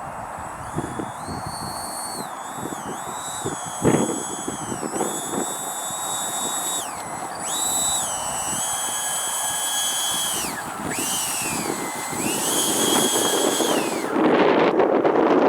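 Twin 70 mm twelve-blade electric ducted fans of an RC Me 262 jet whining, their high pitch stepping up and down repeatedly as the throttle is changed. Wind buffets the microphone throughout and is loudest in the last second or so, with a single knock about four seconds in.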